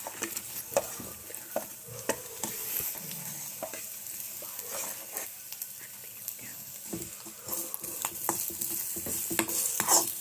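Makhana and cashews being stirred in a kadhai of hot desi ghee with turmeric and ginger: a light sizzle under frequent scraping and clicking strokes of the stirring spoon against the pan.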